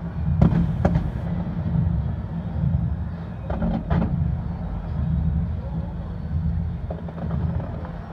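Fireworks going off at a distance: a continuous low rumble of booms, with sharper cracks about half a second in, just under a second in, and a quick cluster of three around three and a half to four seconds in.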